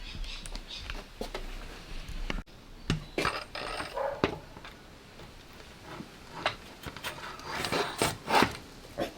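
Mountain bike parts being handled during assembly: scattered light clicks, knocks and short scrapes of small hard parts being fitted together, with a few louder clacks about three seconds in and again near eight seconds.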